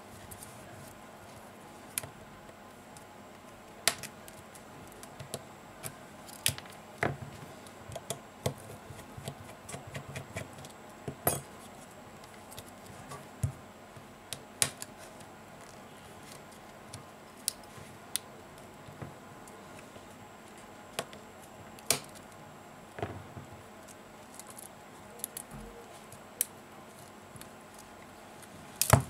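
Irregular sharp clicks and taps of a small precision screwdriver and little metal and plastic parts being handled on an opened Sony Xperia Z5 Compact's chassis, as its screws and inner plastic frame come out. They come thickest in the first third and in a quick cluster at the end.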